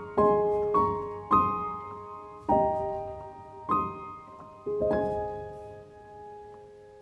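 Slow, gentle solo piano music: soft chords and notes struck about once a second, spacing out, with a final chord about five seconds in left ringing and fading away.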